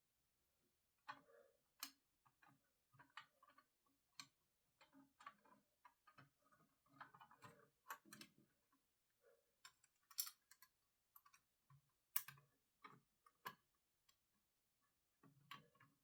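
Faint, irregular clicks and taps of a screwdriver with an Allen-key bit and small screws being fitted into a graphics card's cooler.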